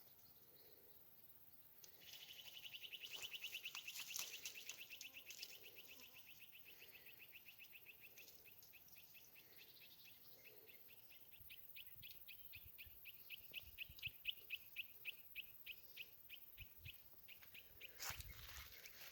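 Faint, high-pitched animal chirping: a fast trill starts about two seconds in, slows into separate chirps a few times a second, and stops near the end. A few clicks and a brief rustle of handling come through underneath.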